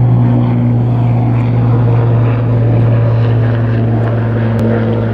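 Helicopter M-JCBA flying overhead, a loud, steady low drone of its rotors and engines.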